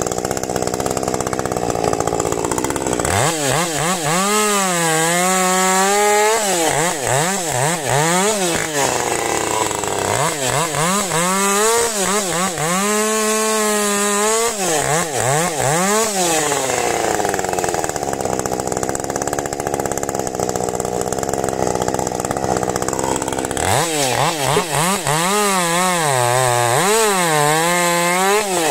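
Husqvarna 550 XP Mark II two-stroke chainsaw running at high revs, cutting firewood. Stretches of steady cutting noise alternate with three spells where the engine pitch swings quickly up and down.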